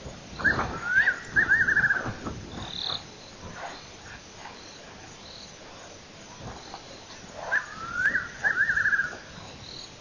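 A wild animal calling twice, about seven seconds apart: each call is a rising note followed by a quick run of about five notes, over faint night sounds.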